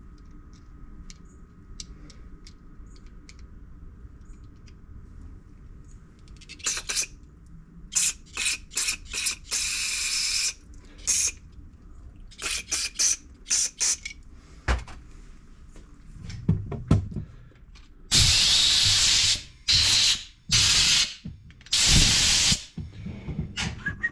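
Aerosol cleaner sprayed through a thin straw into the passages of a Honda GCV160 carburetor, flushing the clogged main jet and emulsion tube. It comes as a string of short hissing squirts, then three longer blasts of a second or so near the end.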